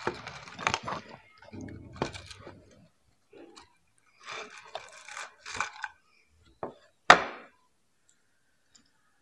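Lay's potato chips rustling and crackling as fingers pick through a bowl of them, in irregular bursts, then one sharp crunch about seven seconds in, the loudest sound, as a chip is bitten.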